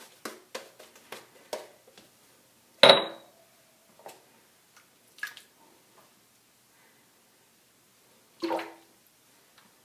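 Schick Krona double-edge safety razor: quick short strokes, about three a second, for the first second and a half. Then a sharp knock with a brief ring about three seconds in, and another near the end, amid water sounds, as the razor is knocked against the sink and rinsed.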